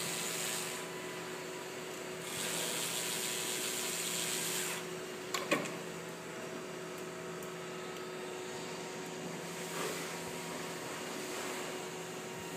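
Cordless drill driving screws out of a 3D printer's print head, running in two spells of about one and about two and a half seconds, over a steady hum. A single sharp click about five and a half seconds in.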